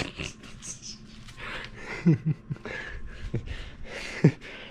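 Light, irregular clicking and rattling of metal steering rack parts being handled and fitted together, with a few short vocal sounds in between.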